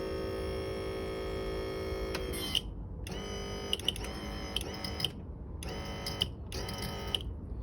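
The power trim and tilt motor on a 1992 Johnson 88 Special outboard whines steadily as it raises the engine, running for about two and a half seconds before winding down. It then runs in three shorter bursts, with small clicks as it switches on and off, as the motor is jogged further up with the new trim switch and relays.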